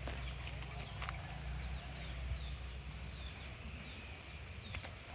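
Outdoor ambience: small birds chirping faintly and repeatedly over a steady low rumble, with a few sharp clicks.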